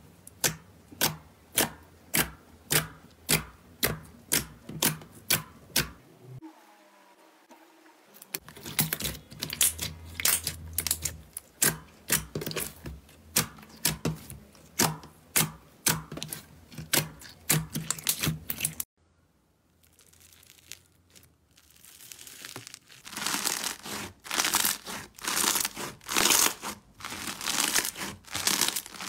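Clear slime pressed and lifted by fingertips, making sharp, sticky pops about twice a second. Near the end a fluffier slime is squeezed by hand with a dense run of crackling.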